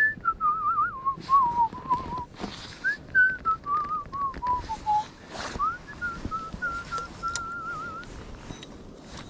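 A person whistling a tune with a slight warble, in three phrases: the first two fall in pitch and the third rises and then holds level before stopping about two-thirds of the way through. A few light knocks sound now and then.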